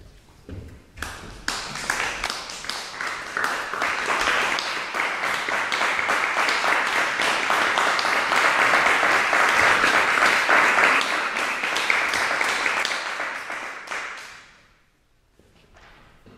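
Audience applauding in a hall, greeting performers as they come on stage. The clapping builds over the first couple of seconds, holds steady, then dies away about fourteen seconds in, leaving a few faint knocks.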